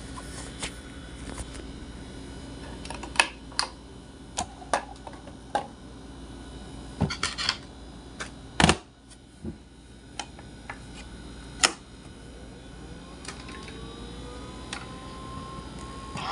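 CoolCold electric fan running with a steady hum, broken by a dozen or so sharp, irregularly spaced clicks and knocks: the vibration noise the owner complains of.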